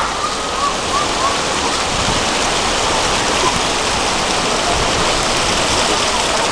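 Splash-pad fountain jets spraying up and splashing down onto a wet stone plaza, a steady rush of falling water.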